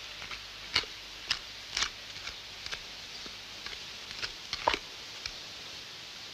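Footsteps on a path: a run of sharp, irregular clicks, about two a second at first, over a steady hiss.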